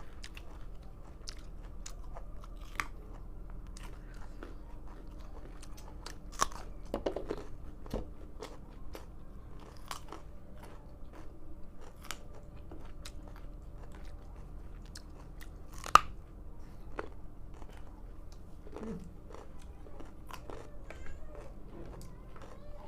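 Raw carrots being bitten and chewed with mouth close to the microphone, giving irregular sharp crunches. One crunch about two-thirds of the way in is much louder than the rest. The carrots are very hard.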